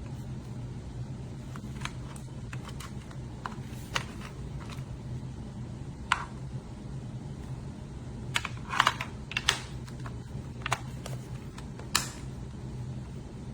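Irregular light clicks and taps over a steady low hum, loudest in a short flurry about two-thirds of the way through.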